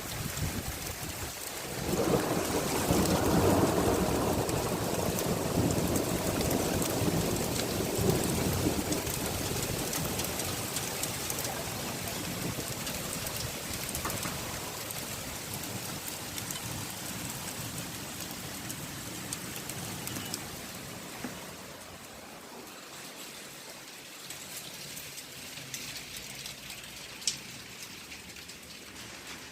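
Hail falling hard, a dense patter of many small stones striking surfaces, heaviest in the first several seconds and then gradually easing to a lighter, steady fall.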